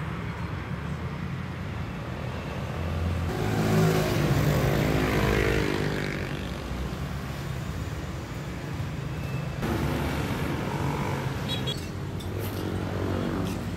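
Engine of a motor vehicle passing close by, swelling to its loudest about four seconds in and then fading, over a steady low rumble of road traffic.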